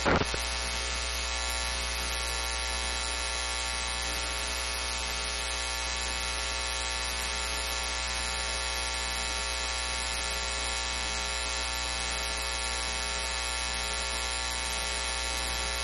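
Steady electrical mains hum, a buzz with many evenly spaced overtones, cutting in abruptly as the speech drops out. It is the sign of a broken or dropped audio feed on the live broadcast.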